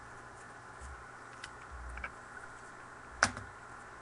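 Faint handling of trading cards: a few light ticks and one sharper click about three seconds in, over a low steady hum.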